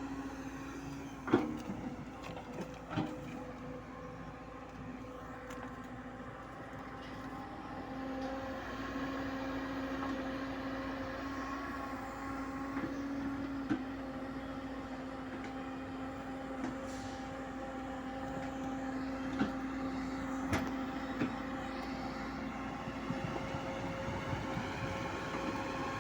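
JCB excavator running steadily while backfilling soil, with a continuous whine, and a few sharp knocks or clanks, the loudest about a second in.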